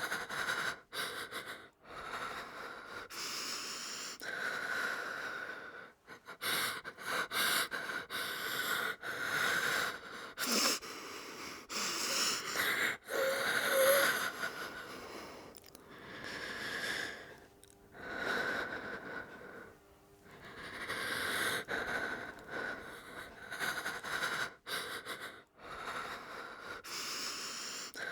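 A frightened woman breathing hard through the nose: an irregular run of shaky, gasping breaths with short pauses between them, loudest about halfway through.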